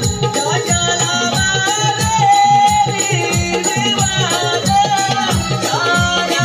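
Konkani Naman folk music: a high-pitched voice sings long held, bending notes over a steady beat of deep drum strokes that drop in pitch, with fast, even jingling percussion.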